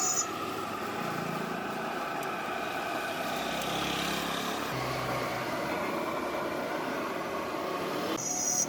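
Street traffic: engines of passing road vehicles over a steady hum of street noise.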